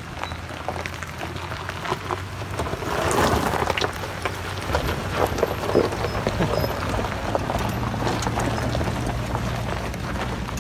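Toyota Tundra pickup rolling slowly past on a gravel road: its tyres crunch over loose stones, with a steady low engine hum underneath. The crunching is loudest about three seconds in.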